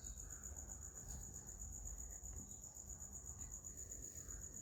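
Faint background: a low steady rumble under a constant high-pitched pulsing tone, with a few very soft handling sounds.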